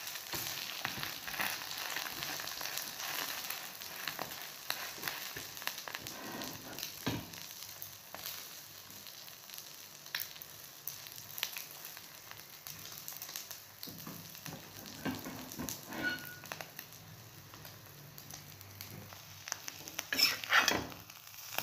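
Egg and roti frying in oil on a flat griddle (tawa): a steady sizzle with small crackles. A few louder handling sounds come near the end.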